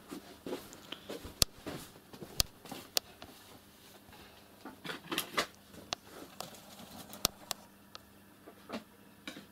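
Scattered light knocks and clicks, about a dozen at uneven intervals, with quieter shuffling between them: a person moving about a small room and handling things.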